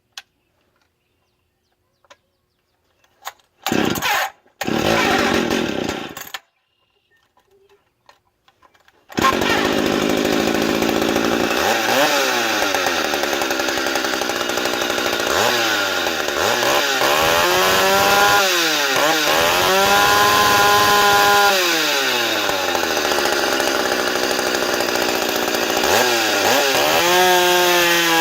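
Stihl 031 AV two-stroke chainsaw with a dual-port muffler being started: it fires briefly twice, then catches about nine seconds in and runs. It is then revved up and let back down to idle several times, held at high revs for a couple of seconds near the middle of the run.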